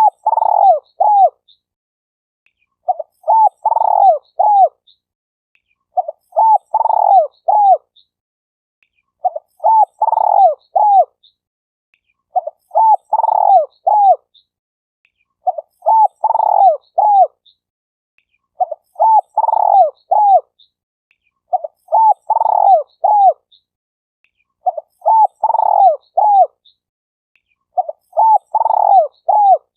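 Spotted dove cooing: the same short phrase of several coos, repeated very evenly about every three seconds.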